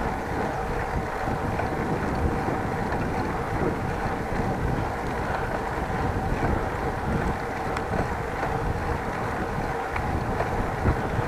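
Wind buffeting an action camera's microphone on a moving bicycle: a rough, fluctuating rumble, with a steady faint hum at two pitches underneath.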